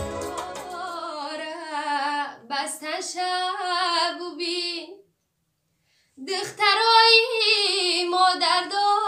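A woman singing a Tajik song live, her voice wavering through ornamented melodic runs. The instrumental backing dies away in the first second, leaving the voice alone. The sound cuts out completely for about a second midway before the singing resumes.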